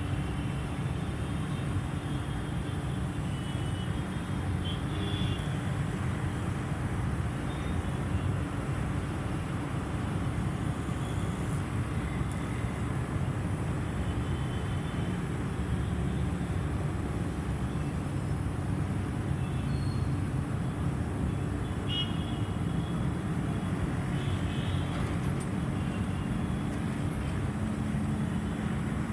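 LG air conditioner outdoor unit running, its fan whirring steadily with a low hum underneath.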